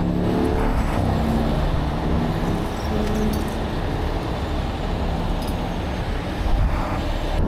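Steady rumble of a heavy diesel engine running, mixed with the rush of freeway traffic passing.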